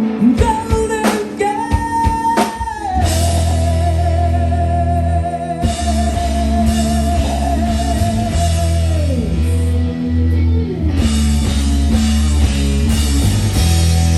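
Live rock band: a long held sung note on the word 'golden' rings out as drums, bass and electric guitar come in at full volume about three seconds in. The held note falls away at about nine seconds while the band plays on.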